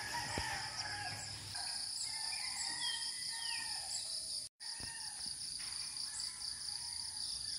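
Rural outdoor ambience: insects chirring steadily in a high, even drone, with a bird giving a few short chirps about three seconds in.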